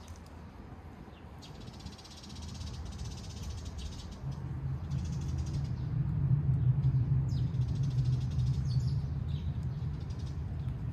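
Domestic cat purring close to the microphone, a steady low hum that grows much louder about four seconds in.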